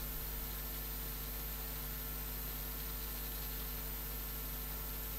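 Steady hiss with a low hum and a faint high whine: the recording's background noise, with no other sound.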